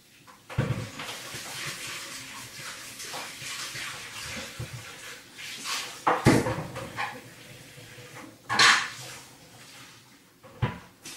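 A tap running while a bowl is washed out, then a few sharp knocks and clatters of dishware about halfway through and near the end.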